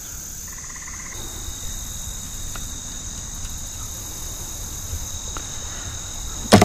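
Evening chorus of crickets and other insects: a steady, high-pitched shrill, with a second steady, lower-pitched trill joining about a second in, over a low rumble.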